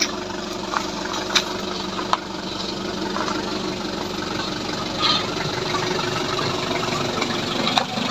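A Hyundai H100 pickup's engine running steadily, with a few short sharp knocks scattered through.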